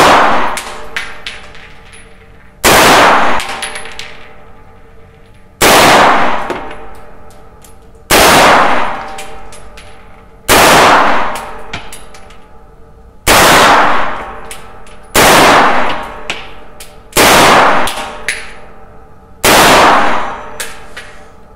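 Heckler & Koch MP5 (HK54) in 9×19 mm firing single aimed shots in semi-automatic, about nine shots spaced two to three seconds apart. Each shot is very loud and followed by a ringing decay in the small range booth.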